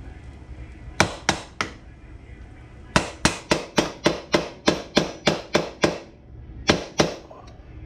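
Repeated sharp hammer blows on metal: three quick strikes, then a steady run of about a dozen at roughly three a second, then two more.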